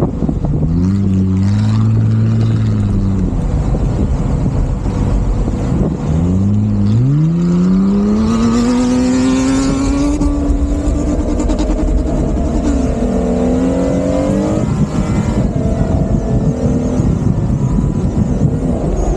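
A 4x4's engine revving hard under load in soft sand. The revs climb in the first second and fall away about three seconds in, then rise steadily for several seconds from about six seconds, dip, rise again and drop off around fifteen seconds in, over a steady rush of wind noise.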